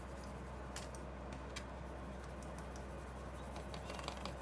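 Lead pencil scratching and ticking lightly over the back of a plastic SX-70 shutter blade, colouring it in with graphite as a dry lubricant so the blades don't stick together. Faint, scattered small ticks over a steady low hum.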